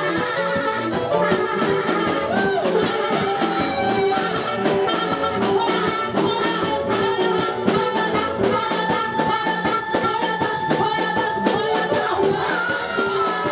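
Music with a steady beat and shaker-like percussion, with a held melodic line and a faint singing voice.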